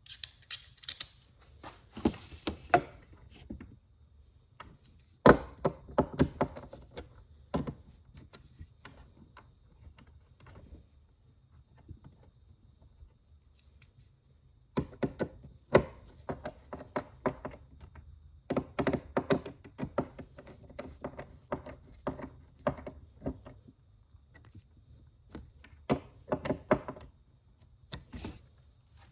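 Irregular clusters of knocks, clicks and thunks from hand work on a wooden RV drawer front while a marine slam latch and its plate are fitted. The loudest single thumps come about five and sixteen seconds in, with quieter pauses around ten to fourteen seconds.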